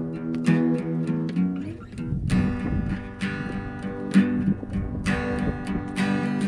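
Acoustic guitar being strummed: a run of chords, each strum a sharp attack followed by ringing strings.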